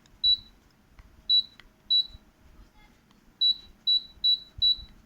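Arielli inverter split air conditioner's indoor unit beeping to acknowledge remote-control button presses as the modes are stepped through: seven short, identical high beeps, three spaced about a second apart and then four in quick succession.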